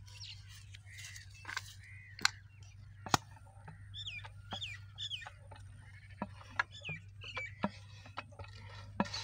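Birds calling with short, curved chirping calls repeated through, over a low steady hum. Several sharp clicks sound among them, the loudest two about two and three seconds in.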